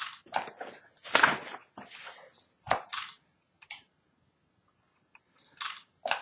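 Book scanner cameras firing for a laser-lit capture: short high beeps and a string of shutter clicks and brief mechanical whirs, with short silent gaps between them.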